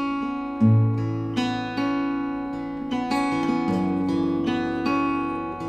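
Acoustic guitar played solo, chords picked note by note at an unhurried pace, the notes ringing over one another: an instrumental passage with no singing.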